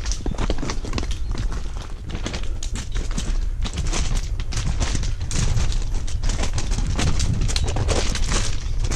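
Footsteps crunching and scuffing on a stony mountain trail, a quick, irregular run of steps over a steady low rumble.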